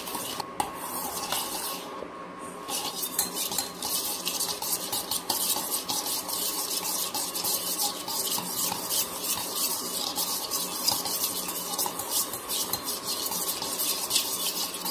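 A spoon rapidly beating instant coffee, sugar and water in a stainless steel bowl, a fast run of clinks and scrapes of metal on the bowl, with a short let-up about two seconds in. This is the early stage of hand-whipping dalgona coffee, while the sugar and coffee are still dissolving and the mix is runny.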